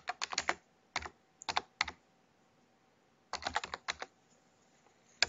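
Computer keyboard keys clicking as a word is typed: short bursts of quick keystrokes with gaps between, and a pause of about a second and a half in the middle.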